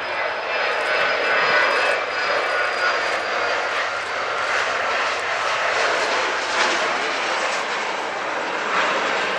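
Airliner engines running as a plane passes, a steady broad noise with a thin high whine that fades over the first few seconds.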